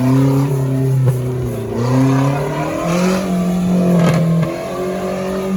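Off-road 4x4's engine revving hard, its pitch rising and falling again and again as it is worked through the course, with a couple of sharp knocks about one and four seconds in.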